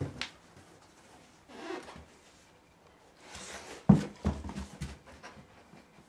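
Handheld camera being moved about on carpeted stairs: rustling, a sharp bump about four seconds in, then a few lighter knocks.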